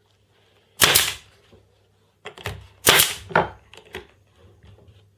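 Stapler snapping down, driving staples through folded paper: sharp clacks, one about a second in and two close together about three seconds in, with lighter knocks of handling between.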